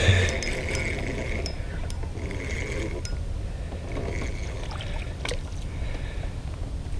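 Spinning reel being cranked and water splashing and dripping as a small yellow bass is reeled up and swung out of the lake, over a steady low rumble. A thump at the very start is the loudest sound, and there is a sharp click a little past five seconds.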